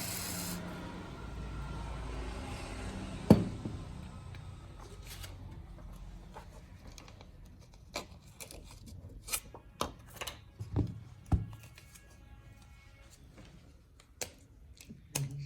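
A brief hiss of aerosol glue remover spraying at the very start, then a sharp click about three seconds in and scattered light clicks and taps of small repair tools being handled in the second half.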